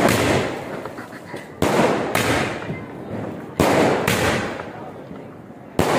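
Aerial fireworks bursting: about five sharp bangs, coming in pairs about half a second apart, each trailing off over a second or so.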